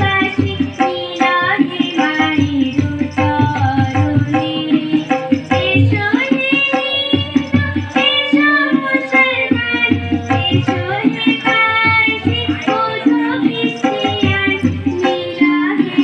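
A woman singing a Bengali song, accompanied by tabla strokes and a steady held note underneath.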